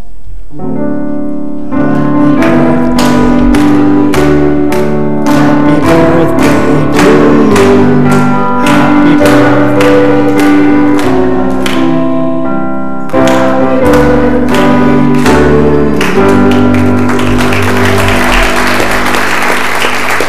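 Piano playing a short tune in steady, evenly paced chords. Applause joins in over the last few bars.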